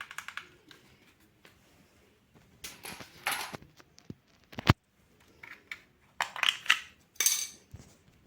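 Packaging being handled and opened: irregular bursts of rustling and scraping, with a sharp click about four and a half seconds in.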